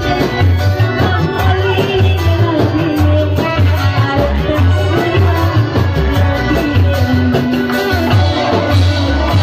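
Live reog folk music played through loudspeakers: a woman sings into a microphone over a strong, steady drum beat and other instruments.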